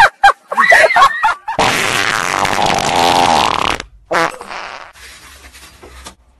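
A long, loud fart lasting about two seconds, starting about a second and a half in, after a few short cries of a voice. A quieter, brief sound follows it.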